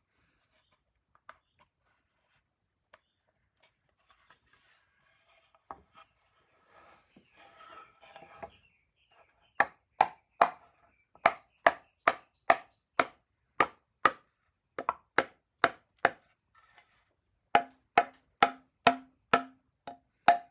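Faint handling and rubbing of wooden chair parts, then a run of sharp wooden knocks, about two a second, as rosewood rim sections are tapped together into their joint during a dry fit. After a short break the knocks go on with a ringing low tone.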